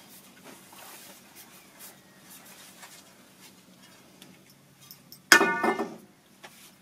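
Light rustling and snapping of tomato plants being handled. About five seconds in comes one short, loud pitched sound lasting under a second.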